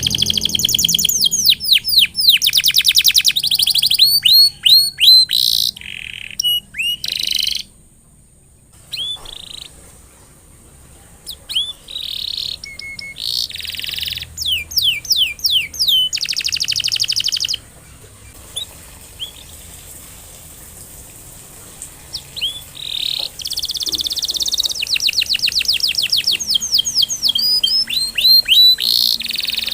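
Domestic canary singing in phrases of fast, high trills and rapid runs of falling notes, broken by two pauses of a few seconds.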